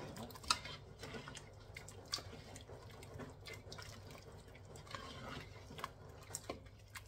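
A spoon stirring thick minestrone soup in a pressure cooker pot: faint sloshing of the soup with scattered light clicks of the spoon against the pot.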